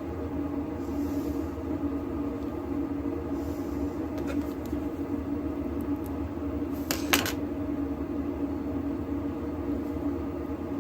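Small sharp metallic clicks as springs are picked out of a deadbolt lock cylinder's pin chambers: a faint one about four seconds in and a louder pair about seven seconds in, over a steady background hum.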